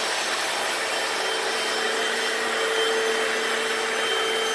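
Hoover FloorMate wet hard-floor cleaner running steadily on a concrete floor: its suction motor gives a constant whine over an even rush of air, with the brushes running while it washes.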